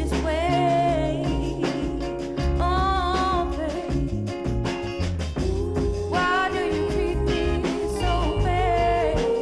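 A soul-funk record playing from vinyl, with a steady bass and drum beat under a bending melodic lead line.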